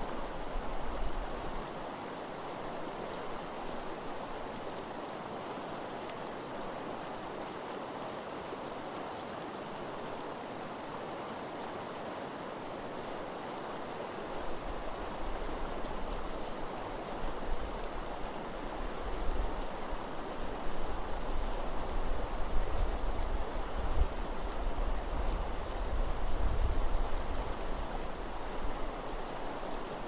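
River water rushing steadily over a shallow gravel riffle. From about halfway a low, gusty rumble comes and goes beneath it.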